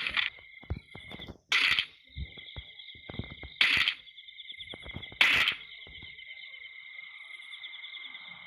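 A steady high-pitched insect chorus, like crickets or cicadas, running throughout, with four loud, short noisy bursts roughly every two seconds in the first two-thirds.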